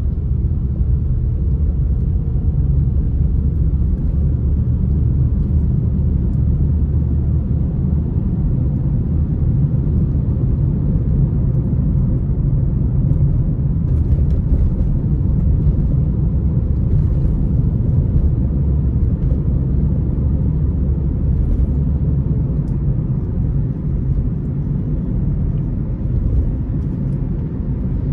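Steady low rumble of a moving car's engine and tyres on the road, heard from inside the car's cabin.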